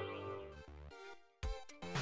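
Film soundtrack music: one sustained passage fades away, there is a brief silence, and a new pulsing rhythmic passage starts about a second and a half in.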